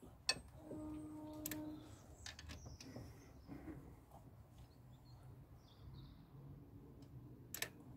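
Faint clicks and knocks of a socket and long breaker bar on the cylinder head bolts of a Rover K-series engine, turned a half turn each for the second, angle-tightening stage. There are a few sharp clicks, the loudest just after the start and another near the end, with a short pitched creak about a second in.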